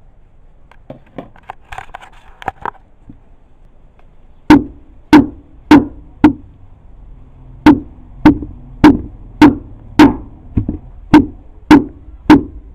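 Wooden pestle pounding sliced afang (okasi) leaves in a wooden mortar. A few light taps come first. From about four and a half seconds in there is a steady run of about a dozen dull thuds, roughly two a second, with one short pause after the first four.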